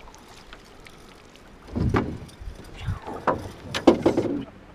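A few knocks and clunks on a small aluminum boat: one loud bump about two seconds in, then a quick run of sharper knocks a second later, as the landing net and gear are handled.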